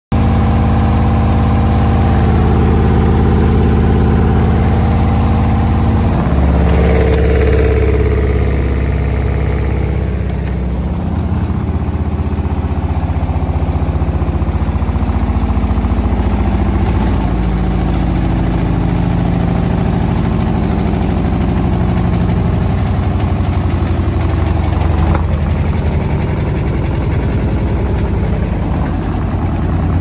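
Beko washing machine drum spinning with a loud low hum and a fast, rapid rhythmic banging, the machine's banging fault; the hum shifts in pitch about six seconds in.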